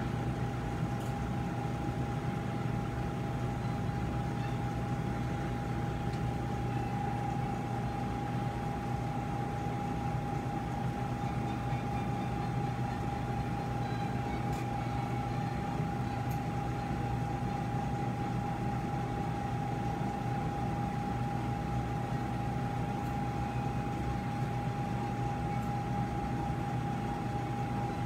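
Steady hum of operating-room equipment and air handling, with a constant thin whine over it.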